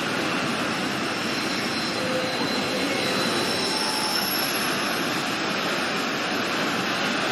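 Heavy storm surf breaking on the shore, a steady unbroken roar of water.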